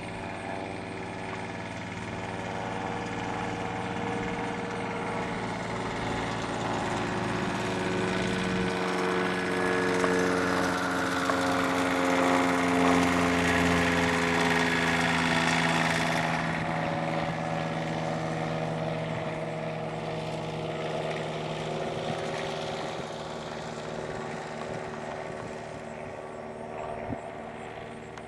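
Grumman AA-1C light aircraft with a 125-horsepower piston engine, its engine and propeller droning as it passes overhead and climbs away. The drone grows louder to a peak about halfway through, drops slightly in pitch as the plane goes by, then fades as it flies off.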